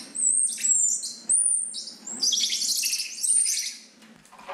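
Squirrel monkeys in a travel crate giving rapid, high-pitched chirps and squeaks, many short calls overlapping in quick succession, dying away near the end.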